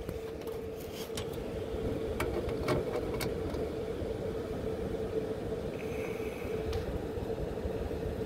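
Fan coil unit's blower motor running with a steady hum over a rush of air, with a few light clicks as the bleeder valve is opened a little more.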